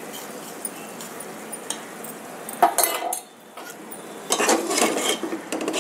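Masala paste frying in oil in an aluminium pressure cooker with a steady sizzle. From a little past halfway, metal utensils clink and scrape against the cooker in a run of short sharp knocks.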